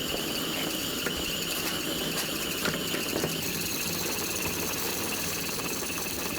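Meat sizzling on a grill over a wood fire: a steady hiss with a few faint pops.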